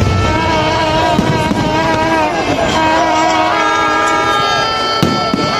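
Many horns and whistles sounding at once in overlapping tones, some held steady and some warbling, over a busy noisy background. A single sharp firework bang comes about five seconds in.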